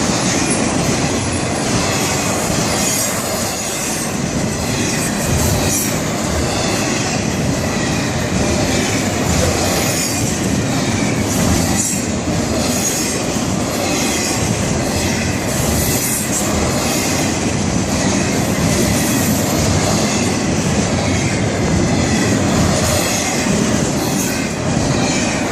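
Florida East Coast Railway freight cars rolling steadily past: a continuous rumble of steel wheels on rail with repeated clicking over the rail joints and a high wheel squeal.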